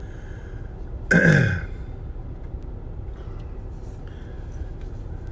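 A man clears his throat once, loudly, about a second in, over the steady low rumble of a running car heard from inside the cabin.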